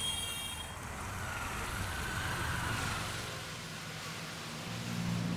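Street ambience: a steady low rumble of road traffic, with a low engine-like hum growing near the end.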